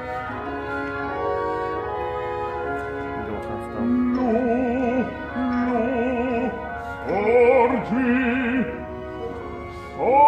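Opera singing with orchestra. Sustained orchestral chords come first; from about four seconds in, a singer holds notes with a wide vibrato in three short phrases.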